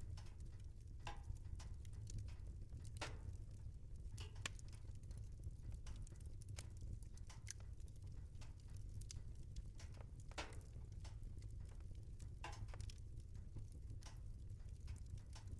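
Wood fire burning in a fireplace: irregular sharp crackles and pops, a few louder snaps, over a steady low rumble.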